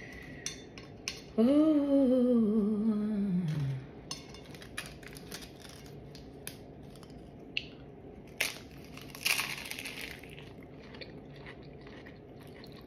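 A woman's long hummed 'mmm', falling steadily in pitch, near the start. Then crunching and chewing of a sandwich topped with crunchy chips, with scattered sharp clicks and a couple of louder crunches about two-thirds of the way through.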